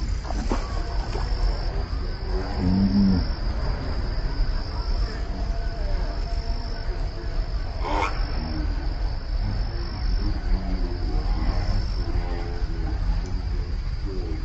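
Steady, high-pitched insect chirring over a constant low rumble on the microphone, with one sharp click about eight seconds in.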